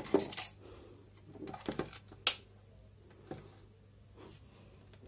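Handling noise of a small metal-cased power inverter being turned and shifted on a tabletop: a few irregular clicks and knocks, the sharpest just after two seconds in, over a faint steady low hum.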